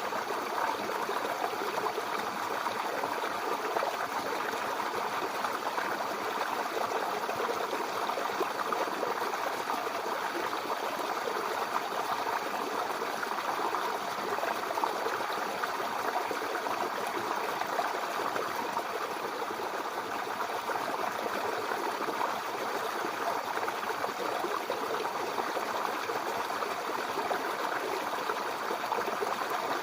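Mountain river flowing steadily, a constant rushing and babbling of water over rocks.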